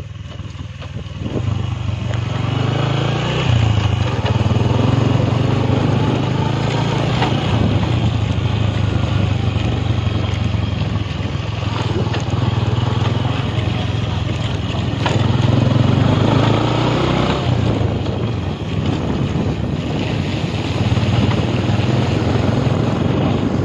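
Engine of a moving road vehicle running steadily, getting louder about a second and a half in, its note wavering slightly as it travels.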